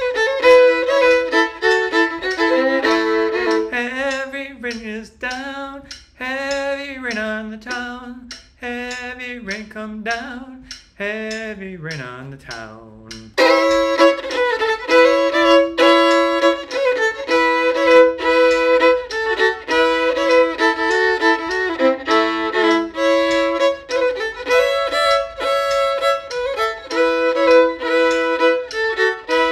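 Solo fiddle (violin) playing an old-time/newgrass fiddle tune in A major. The first half is a softer stretch with wavering, sliding notes. About thirteen seconds in it switches abruptly to louder, quicker bowing.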